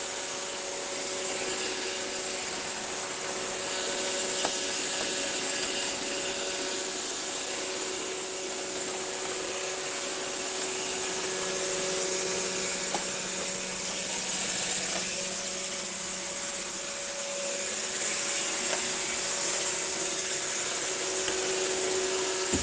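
Steady white-noise track: a continuous rushing hiss of airflow with a faint, steady motor hum beneath it, like a running household appliance.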